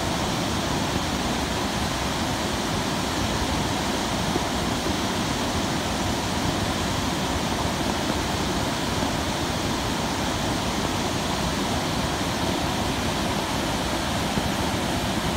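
A river in heavy flood: fast, muddy water rushing over and around boulders in a steady, unbroken torrent.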